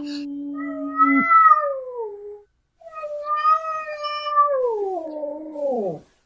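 Angry cat yowling: drawn-out, wavering caterwauls, with a short break about two and a half seconds in, then a longer yowl that slides down in pitch at its end.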